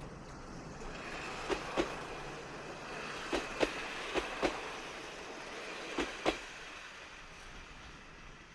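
Kominato Railway KiHa 200 series two-car diesel railcar train rolling past, its wheels clacking over a rail joint in four pairs of clicks over a steady running hiss that fades near the end.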